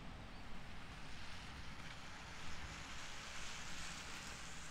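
Outdoor ambience on a rainy walk: a steady hiss with a low rumble beneath. The hiss swells about halfway through and eases again near the end.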